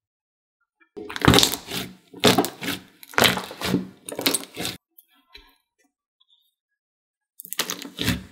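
Thick jelly slime squeezed and kneaded by hand, with clicking, crackling squishes. Four come about a second apart from about a second in, then there is a pause of a couple of seconds, and the squishing starts again near the end.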